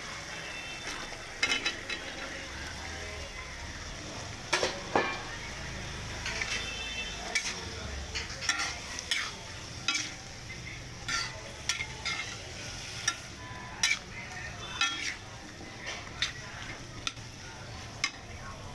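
Potato and carrot sabzi sizzling steadily in a hot pan while a spatula stirs it, scraping and clicking against the pan at irregular moments, about once a second.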